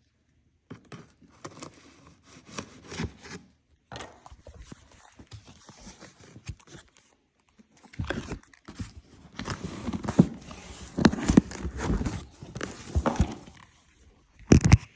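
Handling noise: irregular rustling, scraping and crackling with scattered sharp clicks and knocks, growing denser and louder about halfway through.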